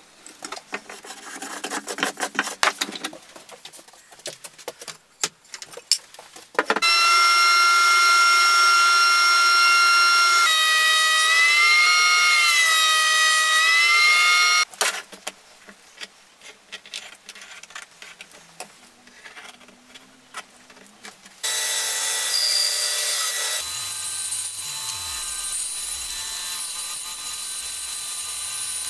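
Hand block-plane strokes and scraping on a board held in a wooden vise. Then a benchtop thickness planer runs loud and steady, its whine sagging and wavering in pitch while a board feeds through, and stops abruptly. After a short loud burst of machine noise, a bandsaw runs steadily, cutting an oak blank.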